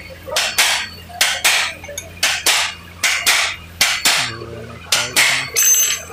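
Hammer blows on a steel drift held against the Honda Activa 4G's clutch-pulley nut, knocking the nut tight. About a dozen sharp metal-on-metal strikes come mostly in quick pairs, about a second apart, with a short metallic ring near the end.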